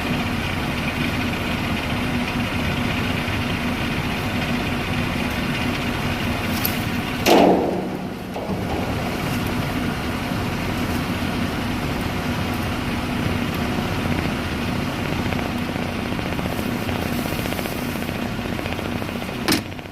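Concrete mixer truck's diesel engine idling steadily, with one short loud burst of sound about seven seconds in and a click near the end.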